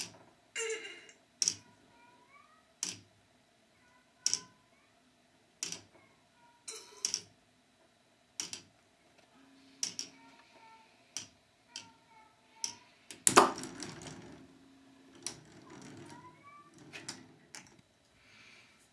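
K'nex ball machine running: a sharp plastic click about every one and a half seconds, and a louder clatter of balls and plastic parts about 13 seconds in.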